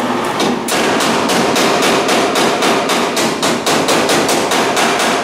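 Fast, steady hammering on sheet metal, about five strikes a second, during bodywork on a pickup cab. It stops suddenly near the end.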